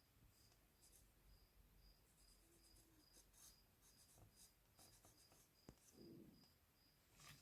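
Faint scratching of drawing strokes on paper, in short irregular bursts. Under it, a faint high-pitched pulse repeats evenly about two to three times a second.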